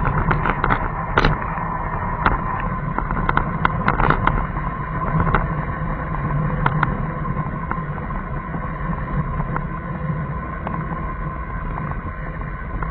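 Car driving slowly, a steady engine and road rumble picked up by a dashcam's microphone, with a thin steady whine over it. A scatter of short sharp clicks or rattles comes in the first few seconds.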